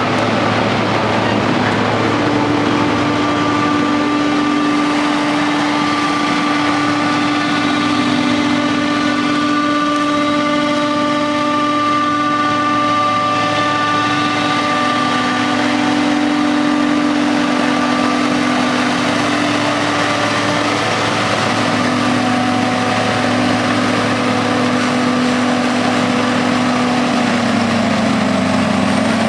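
Heavy farm machinery chopping maize for silage, a forage harvester with tractors alongside, running steadily. A constant engine drone carries several held whining tones, which shift slightly in pitch in the second half.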